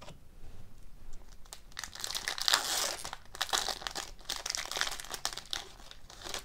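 Foil wrapper of a hockey card pack crinkling and tearing as it is ripped open by hand: a run of crackly rustles that starts about a second and a half in and is loudest around two and a half seconds in.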